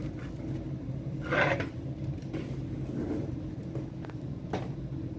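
Handling noise over a steady low hum: a short rustling scrape about a second and a half in, and a sharp click near the end.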